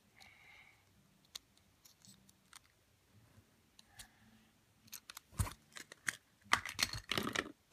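Hard plastic toys being handled: a plastic toy car and plastic surprise eggs clicking and rattling in the hands, with a cluster of louder clicks and scrapes in the last few seconds.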